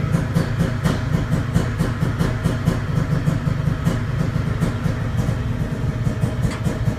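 Honda CR500 two-stroke single-cylinder engine running steadily at low speed on an engine dyno, with sharp uneven pops a few times a second.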